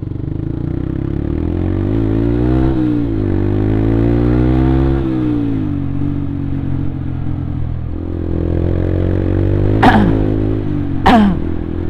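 Yamaha Byson's single-cylinder four-stroke engine running while riding, the revs climbing and dropping twice in the first five seconds and then holding steady. Two brief loud falling sounds come near the end.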